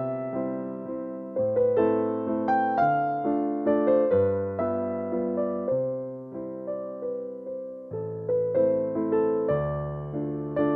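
Background music on a keyboard: struck notes and chords that ring and fade, a new note every half second or so over slower-changing low chords.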